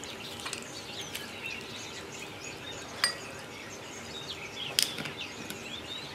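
A few light clinks of kitchenware against a bowl, the sharpest about three seconds in and just before five seconds, over faint bird chirps.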